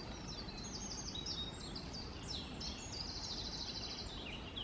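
Songbirds singing in woodland: several high, quick chirping phrases overlapping, with a fast trill about three seconds in, over a steady low background rumble.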